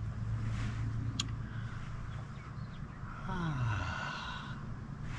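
A man's long, falling 'ahh' sigh of satisfaction, typical of the first swallow of a cold beer, about three seconds in. A sharp click comes about a second in, over a steady low hum.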